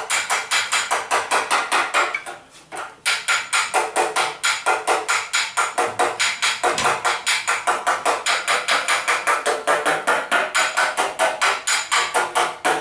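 Hammer blows on the sheet-metal rear fender of a Zündapp KS 601 as it is shaped, in a fast, even rhythm of about five strikes a second, with a short break about two seconds in.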